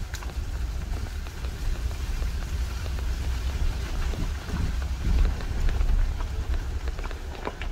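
Jeep Cherokee Trailhawk driving slowly on a wet forest road in the rain: a steady low rumble of the vehicle under way, with an even patter of rain and a few scattered small ticks.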